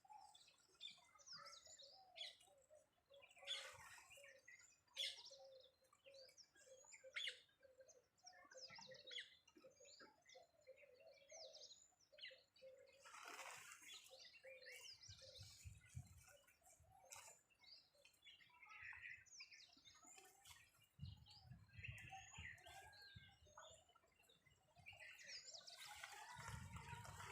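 Several birds chirping and calling, faint, with many short high chirps, and a quick run of lower repeated notes through the first half. A few low rumbles come in during the second half.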